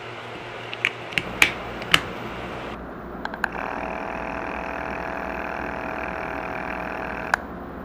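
Handling clicks, then a battery bubble-box aerator's small motor and cam-driven air pump running with a steady buzzing hum for about four seconds, its cam freshly lubricated, cut off with a click near the end.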